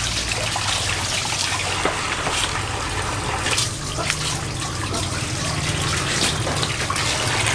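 Water running and splashing, a steady trickling with small irregular splashes.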